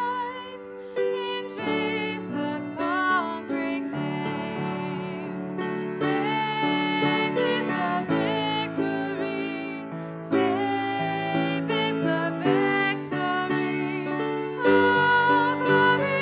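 A woman singing a slow, gentle song solo, with held notes, over soft instrumental accompaniment.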